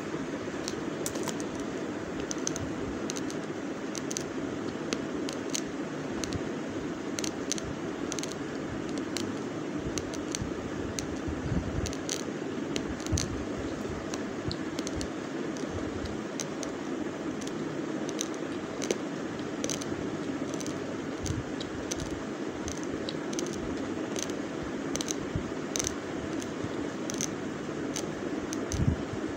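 Raw basmati rice grains crunching as they are chewed: a quick, irregular run of small, sharp cracks over a steady low background noise.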